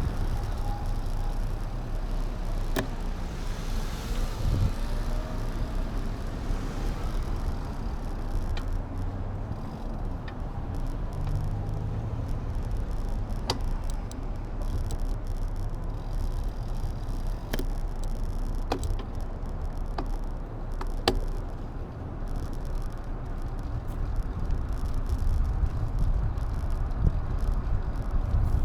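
Steady wind and road noise picked up by an action camera on a moving ride, heaviest in the low range. A sharp click or rattle sounds every few seconds.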